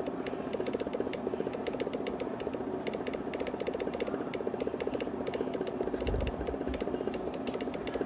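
Jackhammer pounding in a fast, steady hammering, about fifteen to twenty blows a second, with scattered sharp crackles over it and a brief low rumble about six seconds in.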